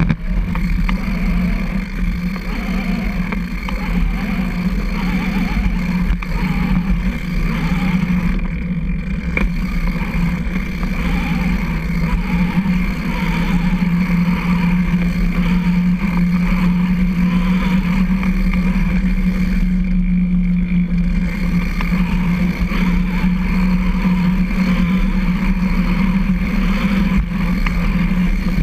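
Recumbent trike riding along a concrete trail: a steady, even hum with a constant low rumble and wind noise on the front-mounted camera's microphone.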